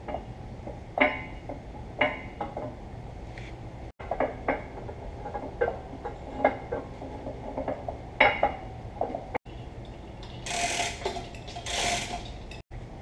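Hand tools and metal parts clinking and clanking irregularly, with two short bursts of hiss near the end.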